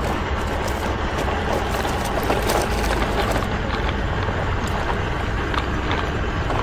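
Plastic toy dump trucks rolling over dirt and small stones: a steady gritty rumble of the wheels with scattered small clicks.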